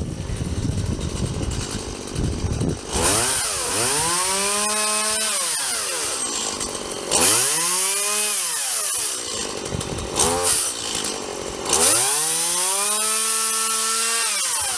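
Stihl two-stroke gas chainsaw revving up and falling back three times while trimming the tops of magnolia branches.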